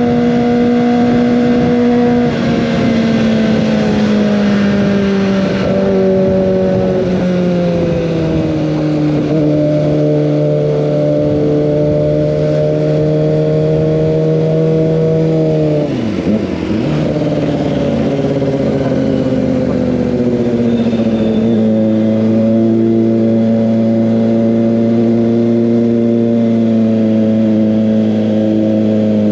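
Kawasaki ZX25R's 250 cc inline-four running hard through an Over Racing GP-RS full-system exhaust, held at high revs with the pitch easing down in stages. About halfway through the pitch dips sharply and recovers, and a few seconds later it steps up again, as with gear changes.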